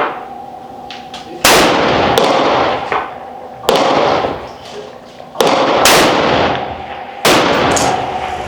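AR-15 rifle firing four single shots about two seconds apart, each with a long echoing tail.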